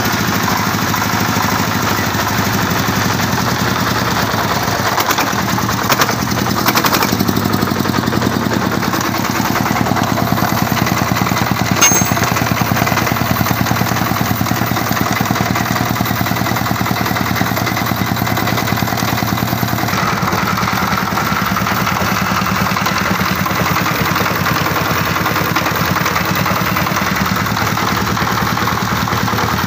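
Jiangdong single-cylinder direct-injection diesel engine running steadily with its rapid, even firing pulse; its note brightens slightly about two-thirds of the way through.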